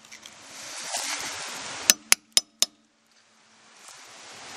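Hammer striking a flathead screwdriver to tap a trailer hub's dust cap back into place over the freshly greased axle bearing: four quick metallic taps about two seconds in. A rustling noise comes before the taps and again near the end.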